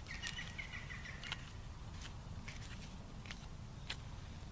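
Scattered light clicks of dry plant tinder being handled, with a brief high chirp lasting about a second at the start.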